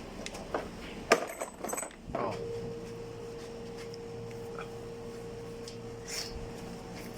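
A quick run of sharp metallic clicks and knocks from tools handled on an air-conditioner's outdoor unit, as its electrical cover is being opened. A steady hum sets in after about two seconds.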